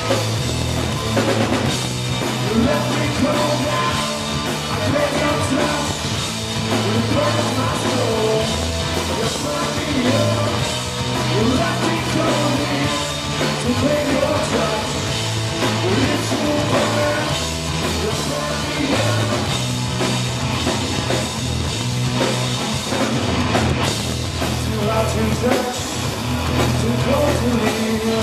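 Live rock band playing a guitar, bass and drums song: electric guitar, electric bass and a full drum kit at a steady, driving beat.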